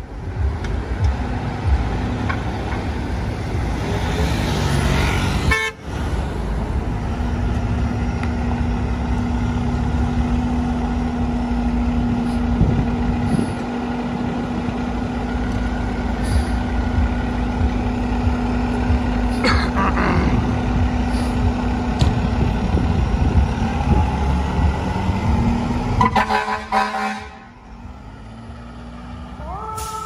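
FDNY aerial ladder truck pulling out onto the street with its engine running and sounding its horn, ending with a louder burst of horn about 26 seconds in before the truck moves off and the sound drops away.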